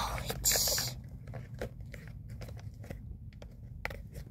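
Hands working at a small clear plastic toy package to get a tight piece off: a short tearing rasp about half a second in, then scattered light plastic clicks and crinkles.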